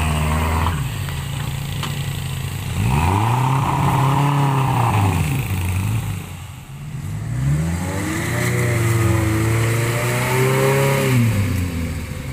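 Suzuki Vitara 4x4's engine revving hard as it crawls through mud: twice the revs climb, hold and drop back, with lower revs in between.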